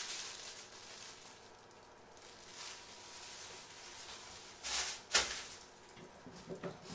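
Thin plastic shopping bags crinkling as they are handled, then two short, loud rustles about five seconds in as the bags are set down on a wooden tabletop, followed by a few faint small clicks.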